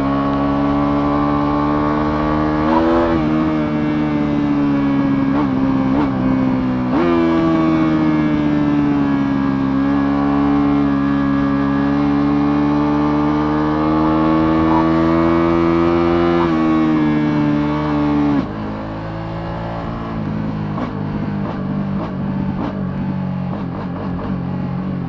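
Ducati Multistrada V2S's 937 cc L-twin engine pulling under steady throttle while riding, its pitch slowly rising and falling, with two brief breaks a few seconds in. About 18 seconds in the throttle closes and the engine drops to a lower, quieter run with a scattering of light ticks.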